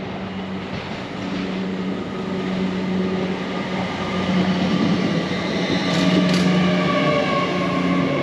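An Avanti West Coast Class 805 bi-mode train runs into the platform and past, growing steadily louder. It makes a steady low hum with several whining tones over it. Two short sharp high sounds come about six seconds in.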